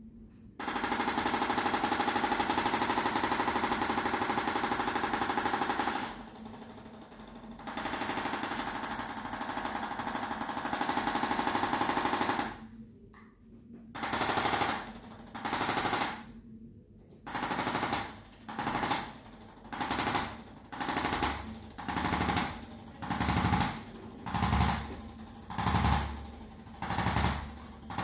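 Handheld electric percussion device hammering rapidly against the back: one long run of about five seconds, a softer run of about four seconds, then short bursts about once a second.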